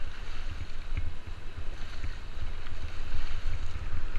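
Rushing whitewater and paddle splashes around a rafting boat, with heavy wind buffeting on the action-camera microphone.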